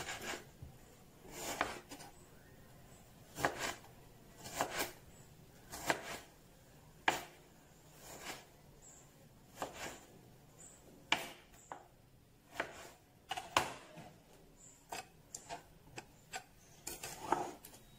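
Kitchen knife slicing a hand-held tomato, making short, irregular cutting clicks and taps, one or two a second, with a few pieces dropping into the bowl.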